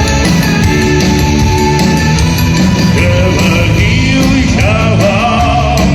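Live rock band playing loud, dense music with heavy guitar, and a voice singing long wavering notes from about three seconds in.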